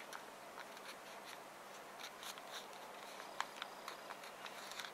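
A square sheet of origami paper being folded and creased by fingers: faint, irregular rustles, scratches and light taps of paper against paper and the table.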